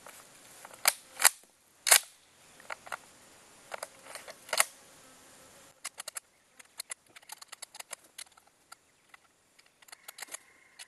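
Bolt action of a Yugoslavian M24/47 Mauser rifle being worked by hand: four sharp metal clacks in the first five seconds as the bolt is opened, the dud cartridge ejected and a fresh round pushed forward, followed by a run of faint irregular ticks and rattles of the action and cartridges. The rifle is struggling to feed the old Persian 8mm surplus rounds.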